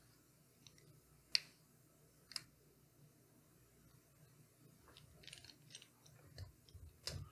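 Faint handling sounds: two sharp clicks about a second apart, then a run of small clicks and light rattles near the end, as small hard parts are moved and set down.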